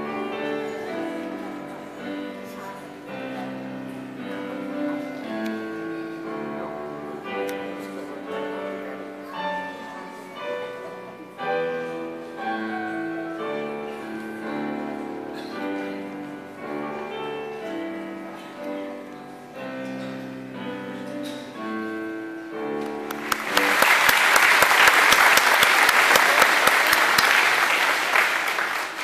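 Music plays, a melody of held notes; about 23 seconds in, a crowd bursts into loud applause that goes on to the end.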